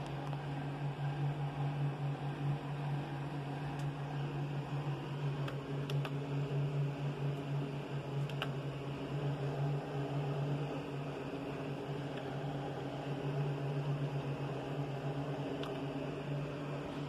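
Desktop PC's cooling fans running with a steady low hum, with a few faint clicks now and then.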